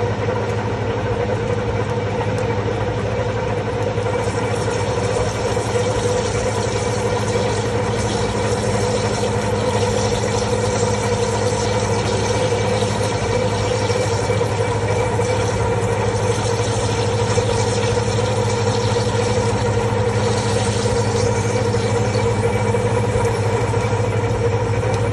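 Large Geminis GHT9 H4 CNC lathe running under power: a steady mechanical hum with several constant tones, unchanging throughout.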